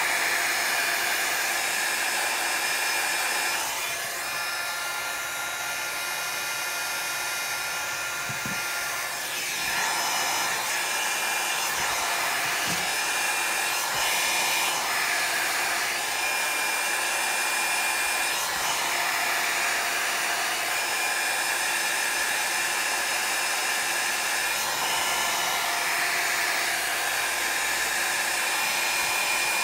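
Handheld electric air blower running steadily, a continuous rush of air with a few high whining tones, blowing on wet alcohol ink to push and dry it. Its sound dips and changes between about four and ten seconds in.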